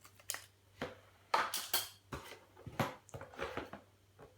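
Handling noise from hard plastic parts being moved about and set down: a string of irregular clicks and knocks, with a louder scraping rustle about a second and a half in.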